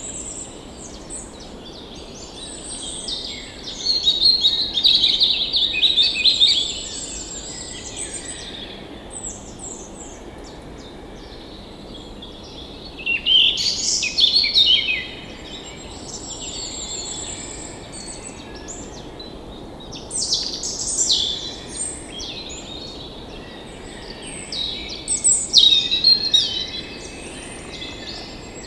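Songbirds singing, with a loud phrase of song every several seconds and a thin, high trill recurring in between, over a steady background hiss.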